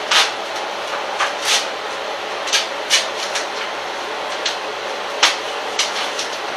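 Sheet of peel-and-stick wallpaper rustling and crackling in short irregular bursts as it is handled at the counter, over a steady hiss.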